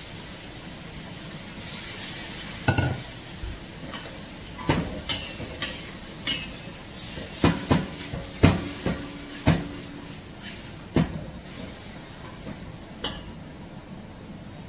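A metal spatula scraping and clanking against a steel wok during stir-frying: about fifteen sharp metallic clanks, thickest in the middle, as the food is stirred and tossed. A steady hiss runs underneath.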